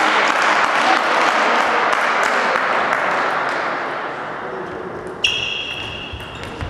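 Spectators applauding, the clapping fading away over several seconds. About five seconds in come sharp clicks of a table tennis ball being struck and bouncing, with a high ringing tone.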